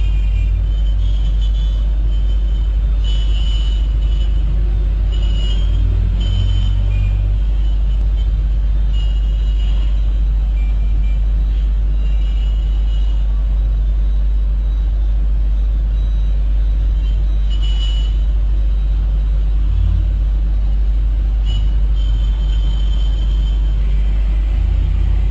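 Busy street traffic of cars, motorbikes, a bus and auto-rickshaws, with a heavy, steady low rumble and short high horn beeps every few seconds.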